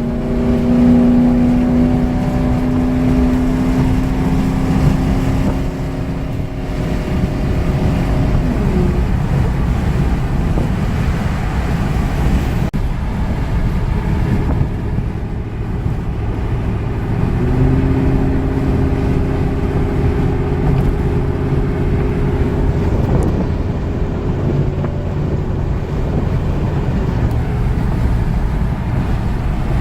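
Ford Crown Victoria Police Interceptor's 4.6-litre V8 and road noise at highway speed, with a steady droning tone that fades about eight seconds in and returns around seventeen seconds. The engine is misfiring and running rough, as the driver has noted on this drive.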